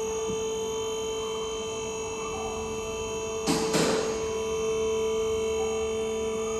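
A steady electrical hum made of several held tones, with two sharp knocks close together about three and a half seconds in.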